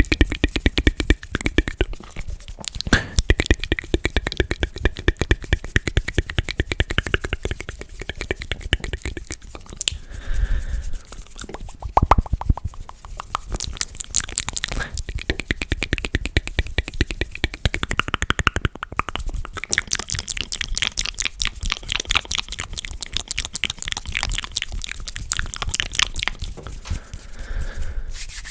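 Close-miked ASMR mouth sounds: rapid wet clicks, pops and smacks, many a second, thinning out briefly a couple of times.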